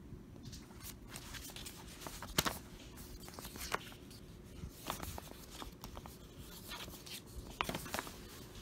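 A folded paper park guide map being unfolded and handled, crinkling and rustling unevenly, with the sharpest crackles about two and a half seconds in and again near the end.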